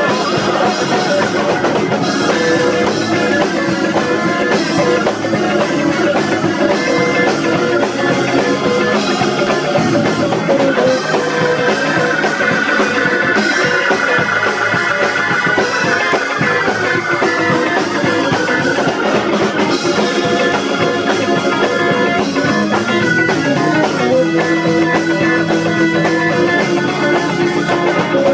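Hammond organ playing chords along with a live band with drums, loud and continuous, with wavering vibrato on held notes partway through.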